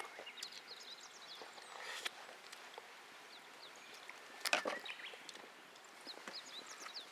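Small birds chirping in short calls over a quiet woodland background. A sharp knock rings out about four and a half seconds in, with a lighter one near two seconds.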